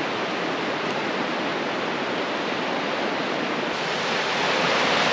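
Rushing stream water, a steady roar that grows a little louder about four seconds in.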